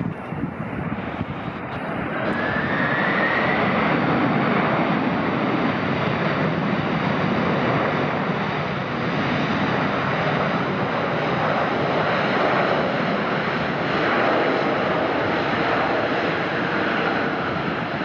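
Airliner passing close by, its engines a loud, sustained rush that swells about two seconds in, with a whine rising in pitch soon after.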